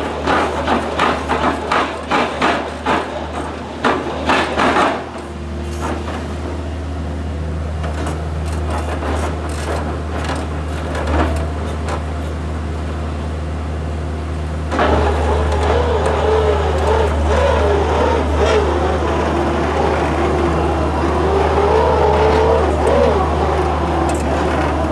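Mini rotary drilling rig running, its engine and hydraulic drive humming steadily. For the first few seconds the auger is spun to fling off its load of soil, with a rapid series of knocks as the clods fly off. About fifteen seconds in it gets louder and adds a wavering whine as the auger bores back into the ground under load.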